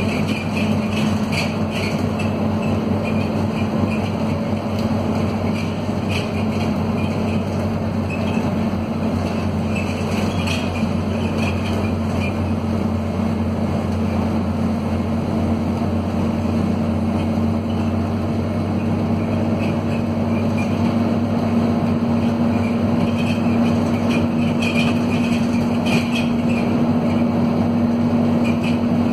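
Scania DC9 five-cylinder diesel of a city bus pulling steadily under load uphill, heard from inside the bus, its pitch rising gradually near the end. Loose rattles from the worn bus's bodywork run throughout.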